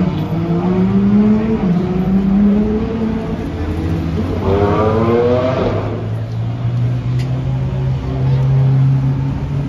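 Car engines running steadily, with one engine revving up briefly about halfway through.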